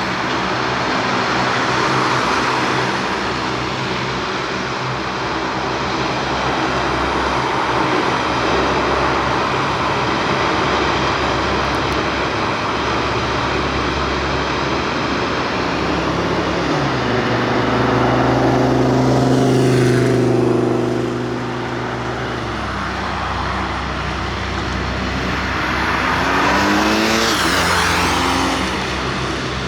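Lockheed C-130 Hercules four-engine turboprops running with a steady propeller drone. About two-thirds of the way through it swells and drops in pitch as an aircraft passes, and near the end a second swell follows with gliding pitch.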